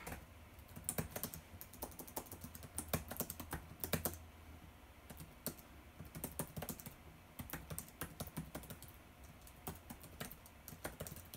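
Typing on a laptop keyboard: quick, irregular key clicks in runs, with a short pause about four seconds in.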